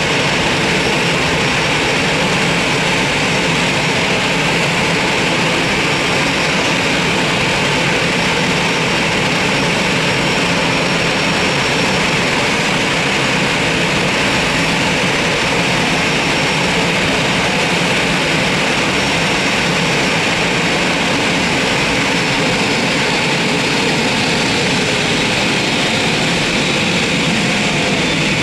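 Jet airliner engines running with a steady loud roar and a faint high whine that slides down in pitch near the end.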